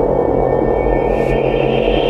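Eurorack modular synthesizer with an Arturia MiniBrute playing a dense, steady ambient drone over a pulsing low bass; a brighter high tone swells in about halfway through.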